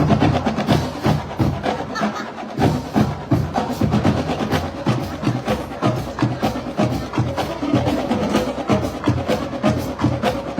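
Marching band drumline playing a rhythmic percussion passage, with drums struck in fast, even strokes and heavy bass-drum hits throughout.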